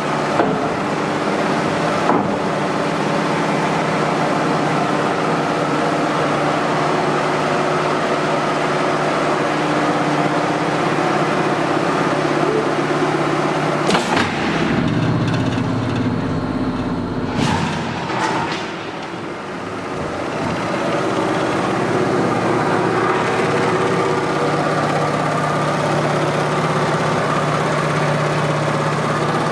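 Pearson hydraulic guillotine's hydraulic power pack running with a steady machine hum. About halfway through there is a sharp clack, then a few seconds of heavier, lower running as the machine cycles through a shearing stroke, and the steady hum returns.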